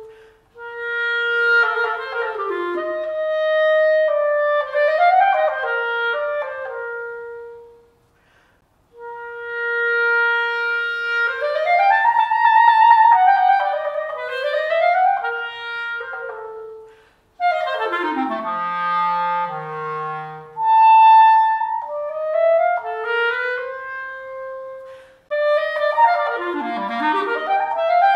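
Unaccompanied clarinet playing a solo passage in several phrases, with held notes and fast runs and arpeggios sweeping between high and low registers. One run near the middle drops to the instrument's lowest notes, and there are brief breaks between phrases.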